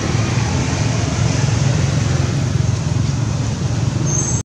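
Loud, steady outdoor rumble with a hiss above it, without any clear call or knock standing out.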